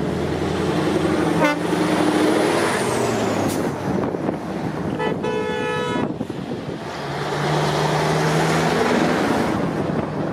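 Classic Scania V8 truck diesel engines running, with a single horn toot lasting about a second midway through.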